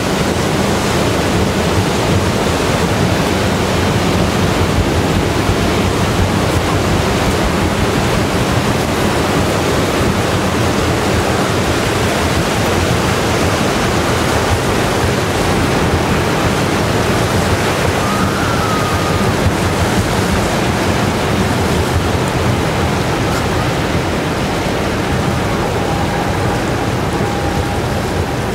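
Propeller wash of the Mesabi Miner, a 1000-foot Great Lakes bulk carrier, churning close by: a loud, steady rush of water with a low hum under it.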